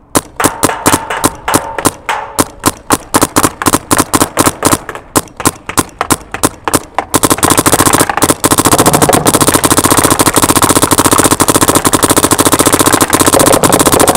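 Dye M3s electropneumatic paintball marker firing: quick strings of shots at first, then from about halfway a continuous rapid stream of shots.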